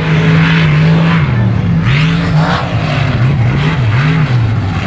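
Mega truck's engine running hard at high revs for about a second and a half, then revving up and down about twice a second as the driver works the throttle through the course.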